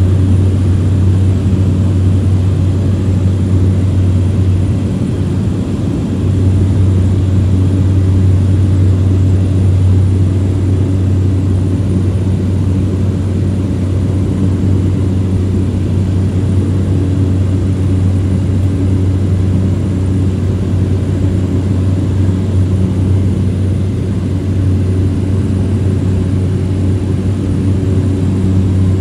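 Cessna light aircraft's engine and propeller droning steadily, heard from inside the cabin as the plane climbs out after takeoff, with a brief dip about five seconds in.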